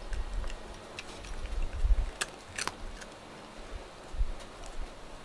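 A cat crunching dry kibble from a small dish: a few sharp, separate crunches, most clearly about one and two and a half seconds in, over faint low thumps.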